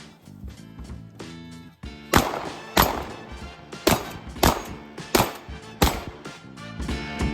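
A competition shotgun fired in a rapid string, about one shot every two-thirds of a second from about two seconds in, over background music.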